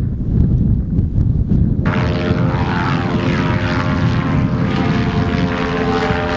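Wind rumbling on the microphone, then from about two seconds in the steady engine-and-propeller drone of a small ultralight airplane flying overhead, with the wind rumble still beneath it.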